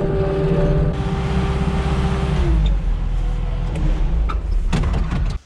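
Engine of a farm machine running steadily, with a low rumble and a steady hum whose pitch drops about two and a half seconds in. It cuts off suddenly near the end.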